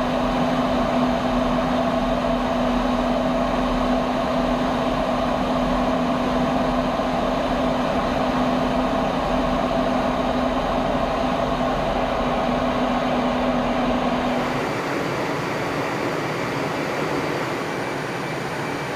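Steady F-15 jet noise with a constant low hum and a higher whine over it; about fifteen seconds in the hums stop and the noise drops a little.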